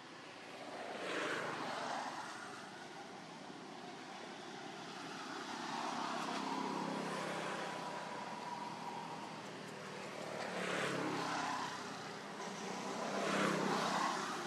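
Engine vehicles passing one after another, each swelling louder and then fading: about four passes.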